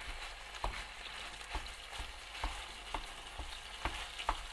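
Ground meat sizzling in hot sunflower oil in a nonstick frying pan, a steady hiss, with short taps and scrapes about twice a second as a plastic spatula breaks up the raw mince against the pan.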